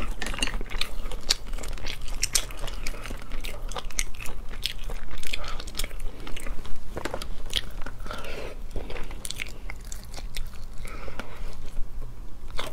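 Close-miked eating sounds: sea snail shells clicking and tapping as the meat is picked out with a toothpick, mixed with chewing.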